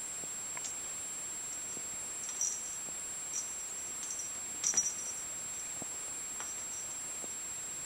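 A few faint, short clicks and taps as a kitten bats at a feather wand toy on a rug, clearest in a quick cluster a little before the five-second mark, over a steady high-pitched whine.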